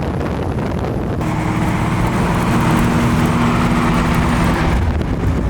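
Car engine and road noise. It grows louder about a second in with a steady engine hum, then eases back near the end.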